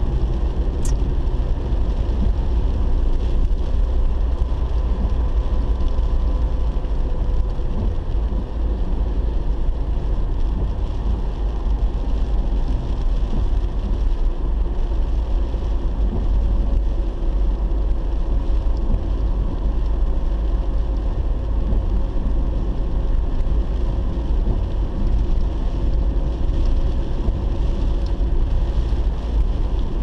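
A car driving on a wet road, heard from inside the cabin: a steady, deep rumble of engine and tyre noise with no change in pace.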